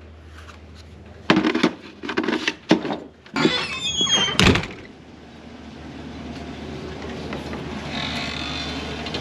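A truck door: a few clunks at the handle and latch, then the hinge squeals as it swings and the door shuts with a heavy thump. After that a steady noise slowly grows louder.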